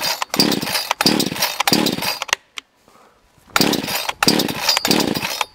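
Recoil pull-cord starter of a cheap off-brand gas chainsaw pulled hard again and again, about six pulls in two sets of three with a pause of about a second between. The engine cranks but does not catch, with the choke out and the throttle jammed part-open with a file.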